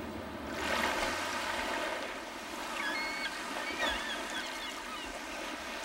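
Small waves washing onto a sandy beach, swelling and ebbing, with a few short bird chirps about three to four seconds in.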